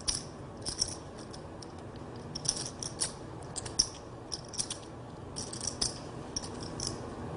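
Poker chips clicking together in irregular small bursts as a player handles his chip stack at the table.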